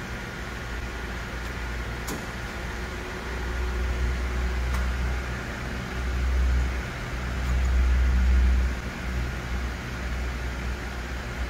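Grand Rapids Model 570 reciprocating-table surface grinder running: a steady motor hum with a thin high whine. A low rumble swells and fades between about three and nine seconds in, and there are a couple of sharp clicks.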